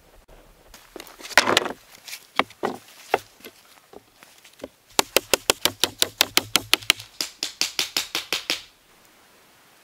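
Knocks and taps on pallet wood. First come scattered, uneven knocks, then a fast, even run of sharp taps, about seven a second, that lasts nearly four seconds and stops abruptly.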